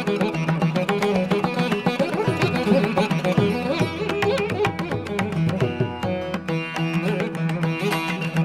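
Indian classical-style instrumental music in a Carnatic vein: plucked string melody over held notes, with quick drum strokes throughout.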